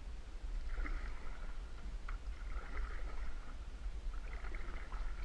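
Canoe paddle strokes through duckweed-covered swamp water, a soft swish and drip about every second and a half, over a low steady rumble.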